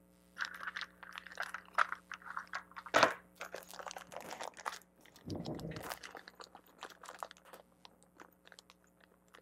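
Small plastic parts bag crinkling as it is opened and rummaged through, with a sharp knock about three seconds in and a dull thump a couple of seconds later, then light clicks of small parts being handled.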